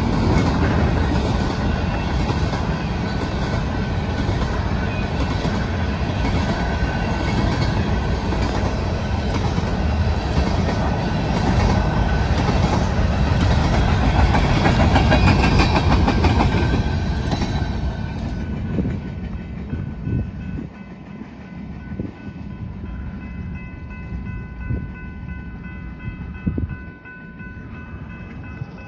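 Union Pacific freight train rolling past, the cars' wheels rumbling and clattering over the rails, loud for the first two-thirds and then falling away. As it fades, steady high-pitched ringing tones stand out: wheel flange squeal as the cars round the curve.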